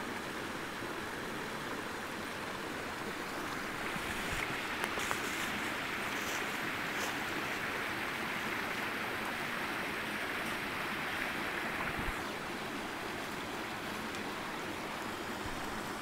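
Mountain creek rushing over granite boulders in small cascades: a steady wash of water that grows louder about four seconds in and eases back about twelve seconds in.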